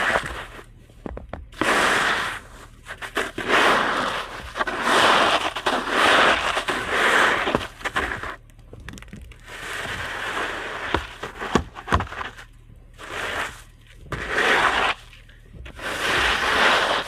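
Snow being scraped and cleared off a sheet of plywood in repeated crunching strokes, roughly one every one to two seconds, with a few sharp knocks.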